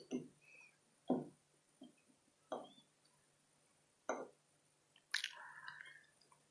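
Quiet eating sounds: a metal fork tapping and scraping on a ceramic plate as a bite is cut, with soft mouth and chewing sounds. A handful of short, separate clicks come about a second apart, the sharpest about five seconds in.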